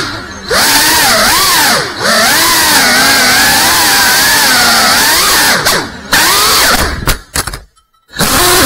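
GEPRC CineLog35 cinewhoop FPV drone's motors and propellers whining, the pitch swooping up and down constantly with the throttle and dipping briefly several times as the throttle is chopped for flips and rolls. Near the end the sound breaks up into short stutters and cut-outs.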